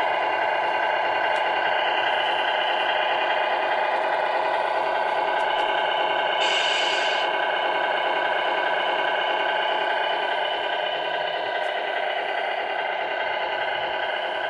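Tamiya Scania R470 model truck's sound unit playing a steady diesel-engine idle through its small speaker, with a brief hiss about six and a half seconds in. It grows a little fainter near the end.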